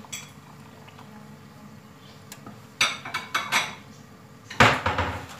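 Metal pots and kitchen utensils clinking and clattering as they are handled: a run of sharp ringing clinks about three seconds in, then a louder, heavier clatter near the end.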